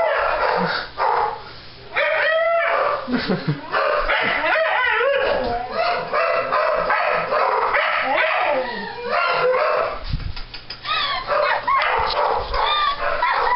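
Dogs barking, yelping and howling excitedly, almost without a break, greeting their people as they come home.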